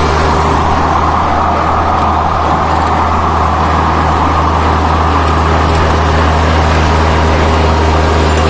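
Rural King RK24 subcompact tractor's engine running steadily at working speed, with its rotary cutter turning.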